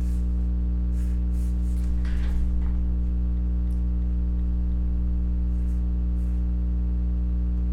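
Steady electrical mains hum, a low buzz with a stack of overtones, with a faint brief rustle about two seconds in.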